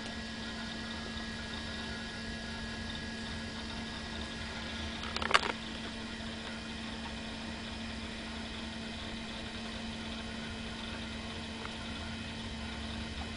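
Apple Macintosh SE/30 running, its cooling fan and hard drive giving a steady hum and hiss. A short burst of clicks sounds about five seconds in.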